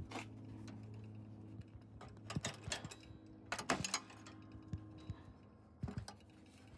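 Scattered light clicks and metallic knocks from hands working the metal discharge chute rod and lever linkage under a snowblower's control panel, loudest about halfway through, over a faint steady low hum.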